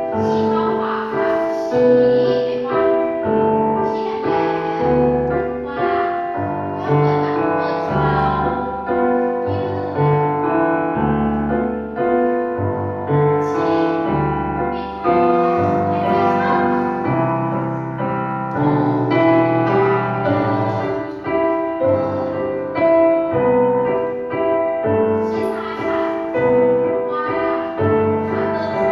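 Piano music, with sustained melody notes over a low bass line.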